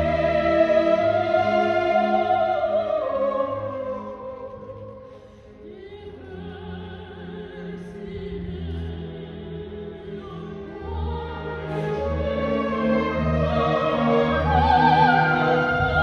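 Operatic soprano singing with a full symphony orchestra. Her held note dies away about four seconds in, the music stays quiet for several seconds, then builds again from about eleven seconds.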